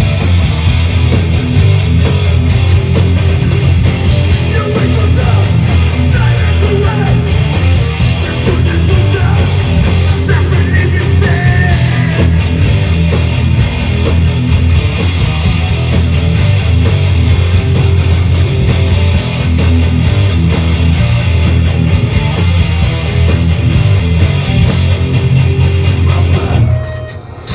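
Hardcore band playing live, with dense, loud distorted guitar, bass and drums and some vocals. The song stops abruptly near the end.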